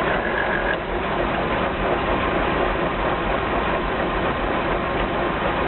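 DS gearbox running in first gear with the driven wheels spinning freely, giving a steady grinding noise over the engine.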